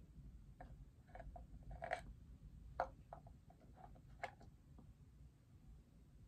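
Faint, scattered clicks and taps of hands handling a bobblehead figure and its base, the sharpest about two, three and four seconds in.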